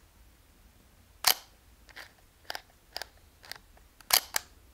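Leica III rangefinder camera being worked by hand: two sharp clicks about three seconds apart, the second a loud double click, with lighter clicks about every half second between them.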